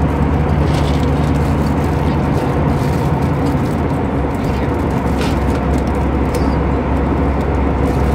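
Steady cabin roar of an Airbus A319 in flight: jet engine and airflow noise heard from inside the cabin, with a constant low hum underneath.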